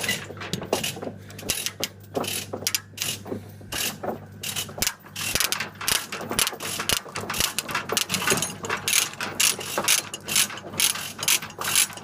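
Quick, irregular metallic clicking from hand work on metal parts, coming faster in the second half, over a steady low hum.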